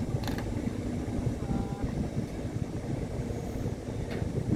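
A construction machine's engine running steadily, with a couple of short knocks, one just after the start and one near the end.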